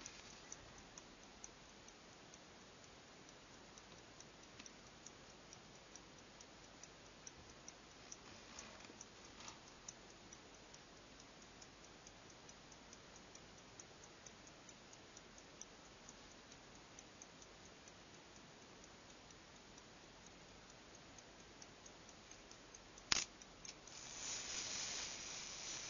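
Verge fusee pocket-watch movement ticking with quick, even, faint beats. About 23 seconds in there is one sharp click, then a louder scraping, rustling noise to the end.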